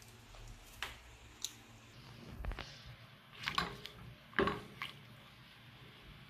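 Silicone spatula stirring apple chunks in water in a pot: wet squelching and sloshing with several soft knocks against the pan, the loudest about halfway through.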